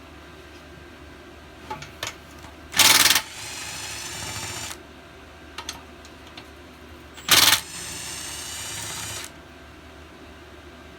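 Cordless impact wrench with a 1/2-inch socket breaking loose bolts on top of a small engine's cylinder head: two short loud bursts of hammering, each followed by about a second and a half of whirring as the bolt spins out. Light clicks of the socket being fitted come between.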